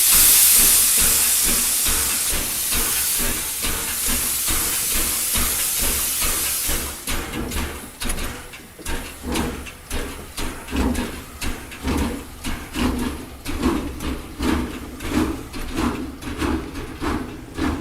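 Steam locomotive: a loud hiss of escaping steam, then the engine's exhaust beats taking over about seven seconds in as a steady rhythm of chuffs, about two to three a second.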